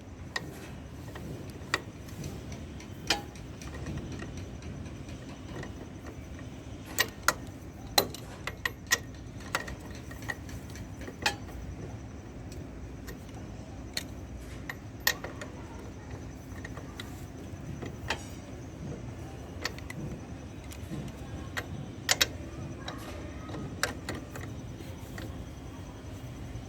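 Irregular sharp metallic clicks and clinks of a wrench working on a motorcycle's rear axle nut as it is tightened, over a steady low hum.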